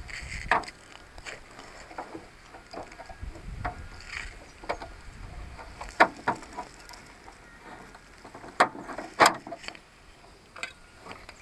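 Clicks and knocks of hard plastic parts being handled and fitted by hand on a push-type wheel seed planter's clear plastic seed drum. They are scattered and irregular, with a sharper knock about six seconds in and two more near nine seconds.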